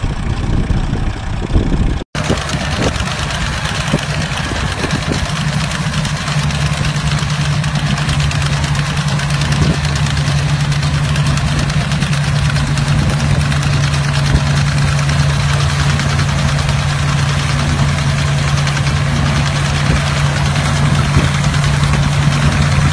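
Small red vintage tractor's engine running steadily at idle, a constant low hum. The sound cuts out for a moment about two seconds in, then the engine carries on unchanged.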